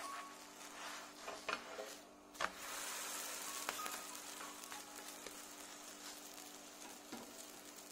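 Cheese-stuffed flatbread frying in an oiled cast-iron pan: a steady sizzle, with two light knocks about a second and a half and two and a half seconds in, after which the sizzle is louder.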